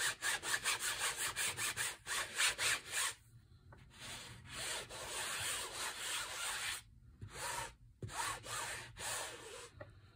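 Ink pad rubbed over the pebbled plastic surface of an embossing folder as the folder is inked. It starts with quick back-and-forth scrubbing strokes, about six a second, then moves to longer, smoother rubbing passes with brief pauses.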